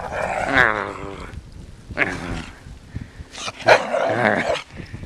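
A pet dog vocalizing in three drawn-out, wavering calls, the first about a second and a half long, a short one about two seconds in, and another just under a second long near the end.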